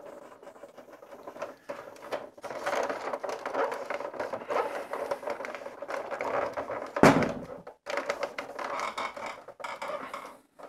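Cloth rubbing and wiping over the plastic hull of a vintage Imperial Shuttle toy as it is polished, a scratchy scrubbing sound. There is one sharp knock about seven seconds in.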